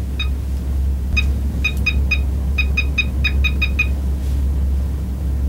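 Telephone keypad beeping as a number is dialed: about a dozen short, same-pitched beeps, one near the start and then quick runs over the next three seconds, over a steady low hum.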